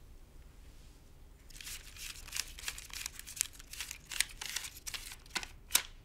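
Quiet room tone at first, then paper banknotes being counted by hand from about a second and a half in: a quick run of crisp rustles and flicks, with two sharper snaps near the end.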